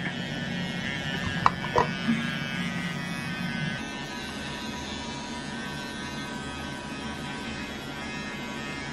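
A children's electric toothbrush buzzing steadily during toothbrushing, with two light knocks about a second and a half in.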